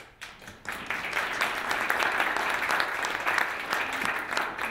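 Audience applauding, building up over the first second into steady clapping.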